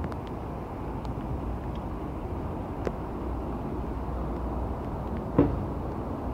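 Class 42 Warship diesel-hydraulic locomotive's twin Maybach V12 diesel engines running as it creeps slowly up to the station, a steady low rumble. A single sharp knock sounds about five seconds in.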